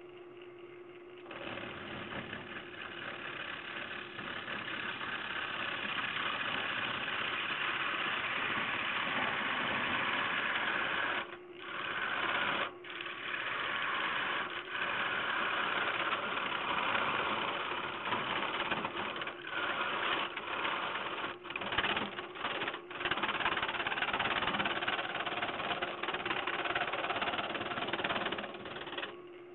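Wood lathe running with a steady motor hum while a long-handled gouge cuts into a spinning ash bowl blank, a dense rushing scrape. The cutting starts about a second in, drops out briefly several times in the middle, and stops just before the end, leaving the hum.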